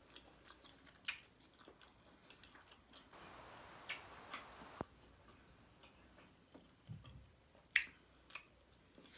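Quiet chewing and eating sounds close to the microphone, with a few sharp mouth clicks.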